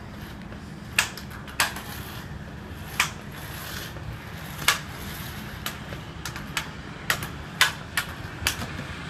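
Irregular sharp clicks and knocks, about ten of them, over a steady low hum.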